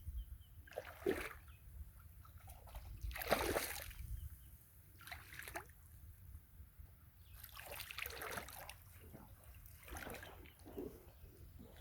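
River water splashing and sloshing, a handful of irregular splashes as people move and work in the water while fishing.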